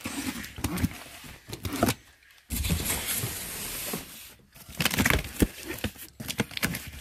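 Box cutter slicing along the packing-tape seam of a cardboard box: scraping at first, then a steady hiss for over a second as the blade runs down the tape. Near the end the cardboard flaps are pulled open with a few sharp rustles.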